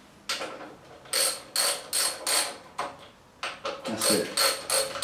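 Hand socket ratchet clicking in about ten short back-and-forth strokes, starting about a second in, as the front brake caliper mounting bolts on a motorcycle fork leg are tightened hand tight.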